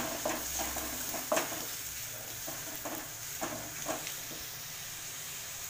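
Onion paste sizzling in hot oil in a metal kadhai while a wooden spatula scrapes and knocks against the pan as it is stirred, the paste being fried toward golden brown. The scraping strokes come about every half second for the first four seconds, then thin out, leaving mostly the steady sizzle.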